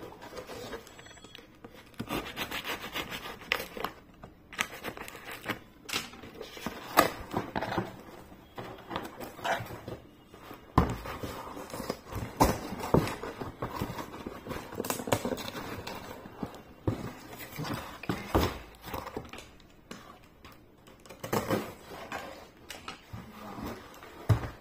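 Clear plastic courier wrap and a cardboard shipping box being handled and opened: irregular crinkling and rustling with scattered sharp knocks of cardboard.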